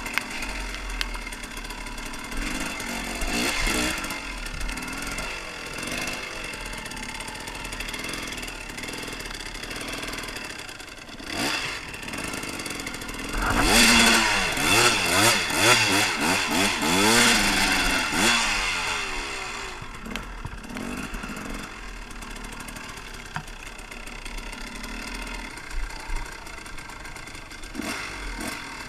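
Husaberg TE 300 two-stroke enduro bike engine running and revving under the rider, with a louder stretch of revving and splashing about halfway through as it ploughs through a muddy puddle.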